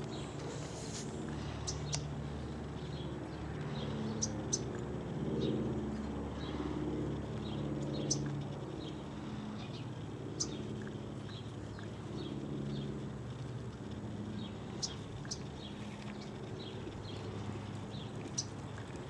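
Small birds chirping now and then in short, sharp notes over a low outdoor background, with the hoofbeats of a horse trotting on arena sand.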